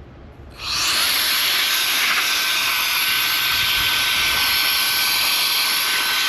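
Air blower blowing dust and dirt off an RC buggy after a track session: one long, loud, steady hiss with a faint steady whine in it, starting about half a second in.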